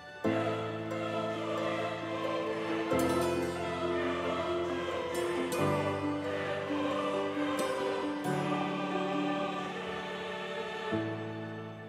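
Music: slow, sustained chords that change about every two and a half seconds.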